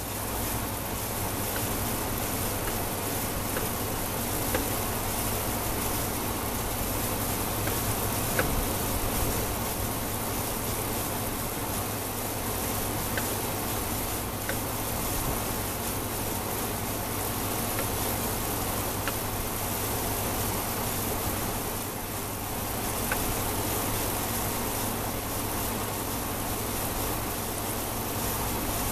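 Steady outdoor background noise: an even hiss over a constant low hum, with a few faint ticks here and there.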